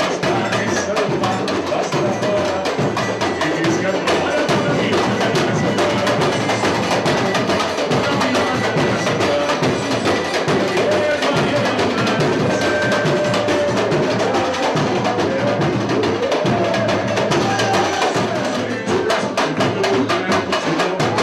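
Samba music with live percussion: fast, dense drumming and clicking wood-block strikes in a steady driving rhythm.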